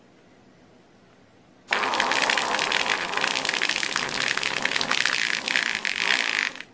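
A long, loud fart with a fast flutter, starting about two seconds in, lasting about five seconds and cutting off suddenly.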